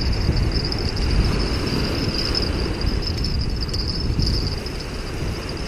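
Wind rumbling on the microphone over small waves breaking on a sandy beach, with a steady high-pitched insect trill of crickets running underneath.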